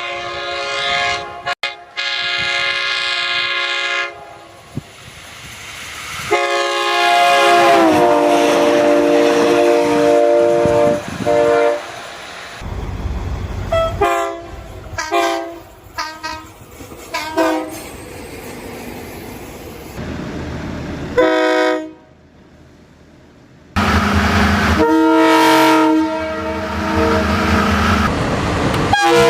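Diesel locomotive multi-chime air horns of the Nathan K3LA type sounding chords: long blasts, one sliding down in pitch as the train passes, and a string of short toots in the middle, with the low rumble of the passing trains between them. The sound changes abruptly several times, as from one clip to the next.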